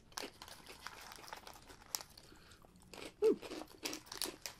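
Small foil snack wrappers crinkling and crackling as they are unwrapped by hand, in scattered short bursts of crackle. A brief falling pitched sound comes about three seconds in.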